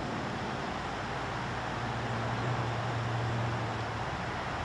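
Steady low drone of a distant motor vehicle over a constant background hiss, swelling slightly in the middle and easing again near the end.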